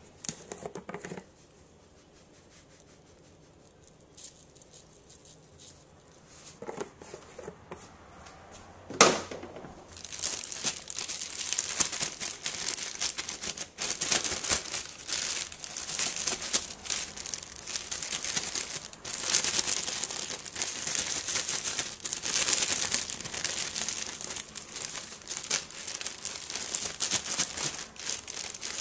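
A sharp knock about nine seconds in. Then a continuous crinkling rustle as dry flour-and-cornmeal breading is mixed, coming and going in waves.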